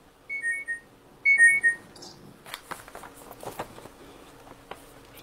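An electronic two-note beep, a higher note then a slightly lower one, sounds twice about a second apart, like a device notification. It is followed by a run of light clicks and taps.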